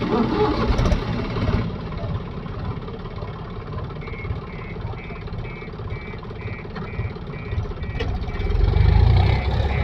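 Heavy diesel engine running, with a repeating electronic beep, about two a second, starting around four seconds in, typical of a vehicle's reversing alarm. The engine grows louder and deeper near the end, as if revving under load.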